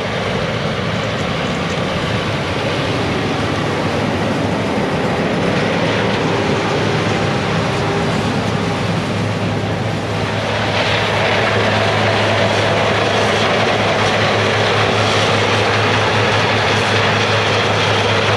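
Heavy farm machinery's diesel engines running steadily at harvest work, with a constant low hum under a broad mechanical din that grows a little louder about ten seconds in.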